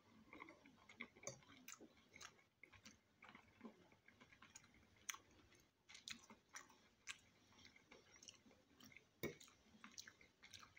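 Faint close-up chewing and wet mouth sounds of a man eating spaghetti, with scattered soft clicks and a few sharper taps of a fork against the plate.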